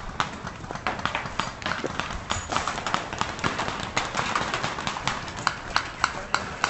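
Quick footsteps of a person moving on foot, a fast run of sharp steps several a second, falling into an even running rhythm near the end.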